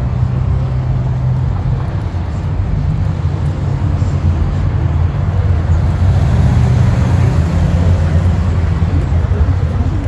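Wind buffeting the microphone, a loud, steady low rumble, with road traffic beneath it.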